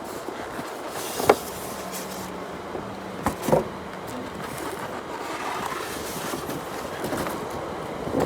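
Unboxing and handling noises from an air compressor's packaging: one sharp knock about a second in and a double knock a couple of seconds later, over steady outdoor background noise.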